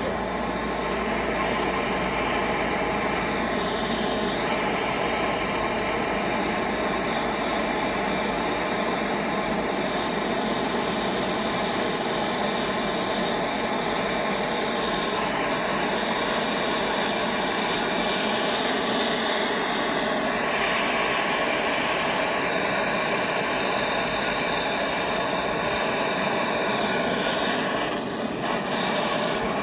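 Gas torch flame burning with a steady, even hiss as it heats a crucible of sterling silver.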